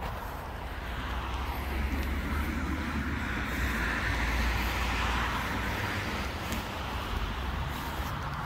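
Road traffic going by: tyre and engine noise of passing cars and lorries over a low rumble, swelling as a vehicle passes about four to five seconds in, then easing off.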